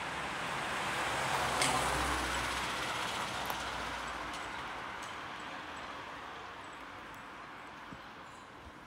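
A vehicle passing close by: a rushing noise that swells to its loudest about two seconds in, then fades away slowly over the next several seconds.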